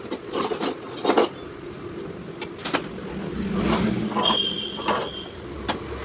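Sharp clicks and knocks of tools and scooter parts being handled, with a motor vehicle passing, louder about four seconds in, and a brief high whine just after.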